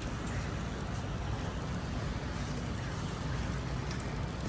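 Steady low rumble of a car running, engine and road noise with no distinct events.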